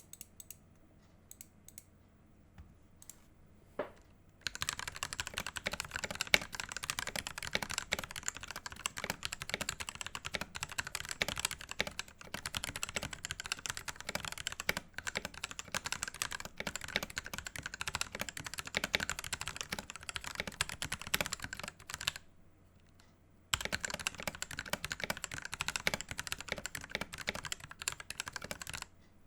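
Typing on a Pulsar PCMK ISO tenkeyless mechanical keyboard with lubed and filmed Outemu red linear switches and Redragon keycaps. A few single keystrokes come first, then fast continuous typing from about four seconds in, a short pause, and more fast typing near the end.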